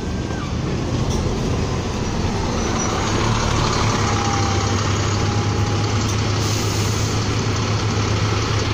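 Double-decker bus's diesel engine running as it draws up close and stands at the stop; its low steady hum grows stronger about three seconds in. A short hiss of air comes about six and a half seconds in.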